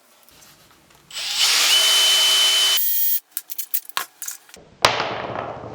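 Power drill running for about two seconds with a steady whine, sharpening a pencil, then a few light clicks and a sharp knock near the end.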